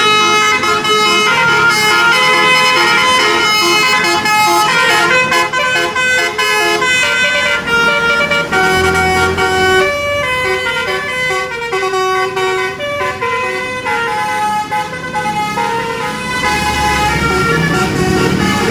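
Telolet basuri bus horn playing a melody of quick stepped notes on its multiple horn trumpets, one tune running into the next.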